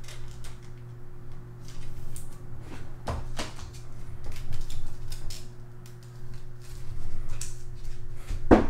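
Soft plastic rustles and light clicks as a trading card is slid into a clear plastic sleeve by hand, over a steady low hum. The handling gets louder near the end.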